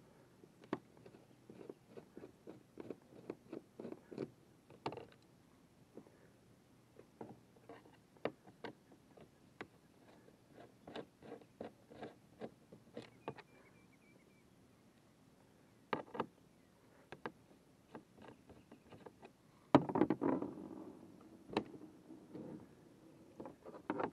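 A screwdriver backing screws out of the plastic drive-well plate of a pedal fishing kayak: a run of small clicks and ticks as the screws turn and are set down on the deck. About twenty seconds in there is a louder burst of handling noise.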